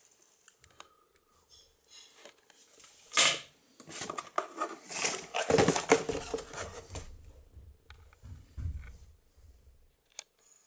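Handling noises: scattered clicks, a sharp clack about three seconds in, then a few seconds of rustling and clattering with a low rumble underneath.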